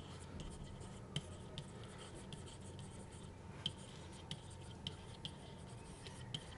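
Pen stylus tapping and scratching on a tablet surface while handwriting, as faint irregular clicks about two to three a second over a low steady hum.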